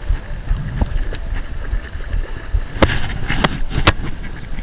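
Wind buffeting the microphone in a low, steady rumble, with three sharp clicks in the second half.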